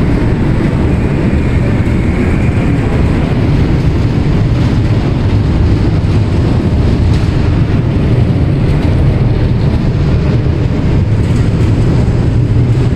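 Loud, steady low rumble on the car deck of the ferry Queen of Surrey under way: the ship's engine and hull noise.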